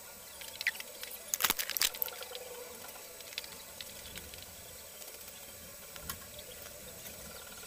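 Light clicks and taps of small objects handled close to the microphone, mostly in a cluster about a second and a half in, over a steady hiss.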